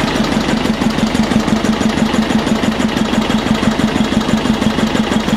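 Listeroid slow-running diesel engine running steadily with an even, rapid exhaust beat, at operating temperature under a steady 3 kW generator load on standard diesel.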